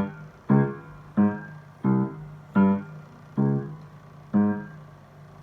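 Piano playing seven short struck notes, each dying away before the next, with the gaps between them growing longer: a ritardando slowing the piece toward its end.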